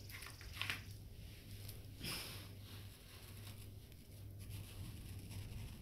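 Faint rustles and scrapes of artificial plastic plants being pushed into sand, the two clearest about half a second in and about two seconds in, over a steady low hum.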